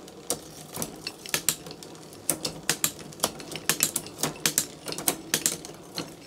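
SRAM Eagle 12-speed drivetrain turned by hand, the chain running over the cassette with a quick series of sharp, irregular clicks as it shifts from cog to cog and the shifter indexes. The gear indexing is being tested after adjustment, and the shifts down the cassette come a little slower than those going up.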